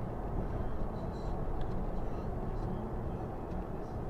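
Steady road and engine noise of a car driving, heard from inside the cabin through a windshield dashcam.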